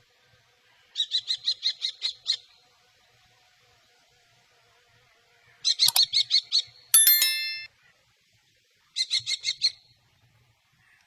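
Common kestrel calling a rapid 'kee-kee-kee' series: three bursts of about eight to ten quick, shrill notes, each lasting about a second, with a brief, harsher held note right after the middle burst.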